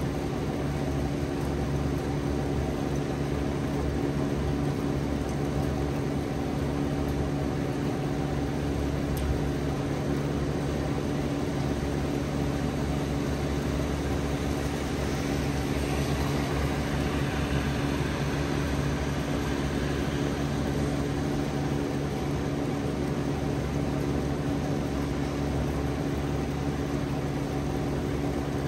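Rain from a severe storm falling steadily, an even hiss that grows a little stronger about halfway through, over a constant low mechanical hum.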